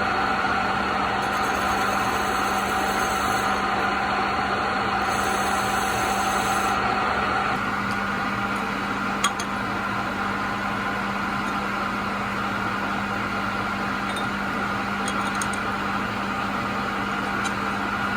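A workshop machine running steadily with a constant hum, with one short tick about nine seconds in.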